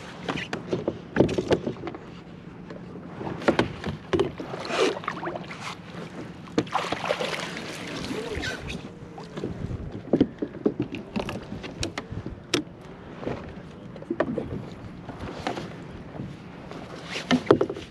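A fluke being landed from a kayak. The fish splashes as the landing net lifts it out of the water about seven to nine seconds in, among repeated knocks and clatter of the net, rod and reel against the kayak.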